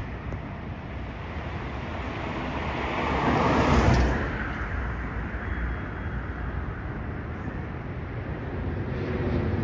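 Passing train: a rushing noise with wheel and wind roar that builds to its loudest about four seconds in, then falls away to a steady rumble.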